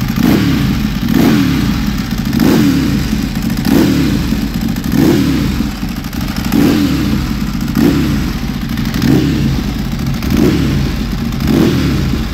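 Ducati 1098's L-twin engine running at warm-up idle. The note swells and rises and falls slightly in pitch about every second and a quarter.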